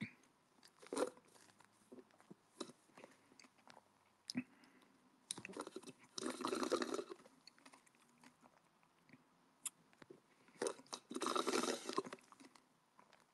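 Faint scattered clicks and two short stretches of crunching, rustling noise close to the microphone, one in the middle and one near the end.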